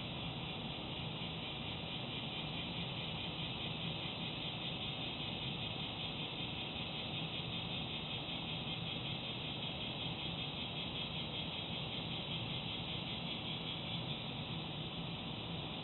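Steady outdoor ambience: a continuous high chirring of insects over a low steady hum, with no distinct events.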